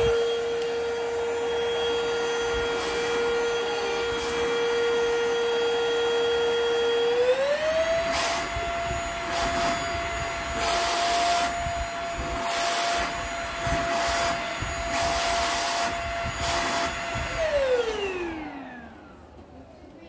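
Perysmith K2 cordless stick vacuum running with a steady high motor whine. About seven seconds in the whine steps up in pitch as it is switched to turbo speed, and the air noise surges several times while the nozzle is held to a rubber ball. Near the end the motor is switched off and the whine falls away.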